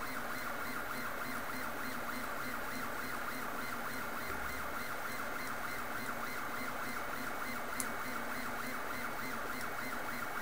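MendelMax 1.5 3D printer's stepper motors running with a steady whine and a fast, even repeating pattern, with one short click near the end.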